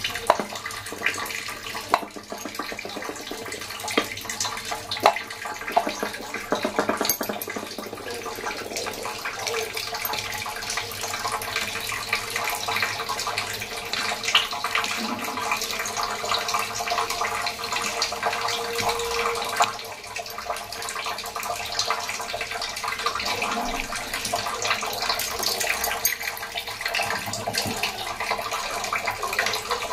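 Wet squelching and clicking as a hand mixes raw prawns with salt and turmeric in a steel plate.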